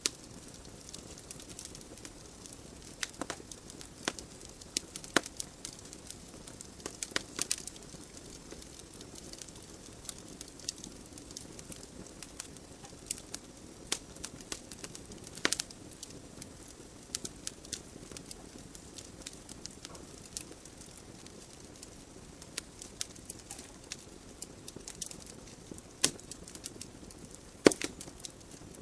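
Wood fire burning in a fireplace: logs crackling with irregular sharp pops over a soft steady hiss of the flames.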